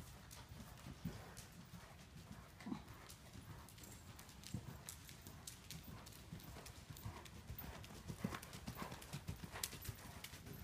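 Faint hoofbeats of horses cantering on soft arena footing. They grow louder and closer together near the end as a horse passes close by.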